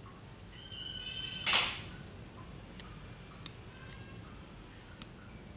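Thin side-cutting pliers prying and peeling a nickel strip off the end of a lithium battery cell: a short metallic scrape leads into a loud snap about one and a half seconds in, followed by a few sharp clicks of the pliers on the metal.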